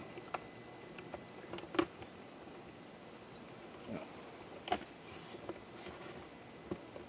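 A few scattered light clicks and knocks over faint room noise: handling of a camera tripod as its leg is set.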